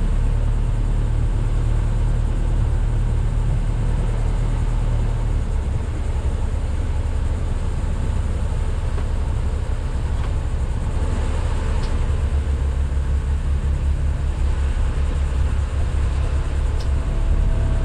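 Sailboat's auxiliary engine running steadily at low revs during slow manoeuvring, a deep rumble with an even pulsing beat.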